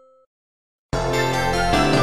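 A Samsung device's electronic jingle starts suddenly about a second in, with several bright held notes sounding together. It follows a brief silence after the last held notes of the previous jingle die away.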